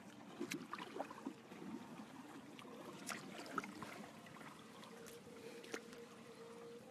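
Small wooden boat moving slowly through the water: faint lapping and trickling, with scattered light clicks and knocks.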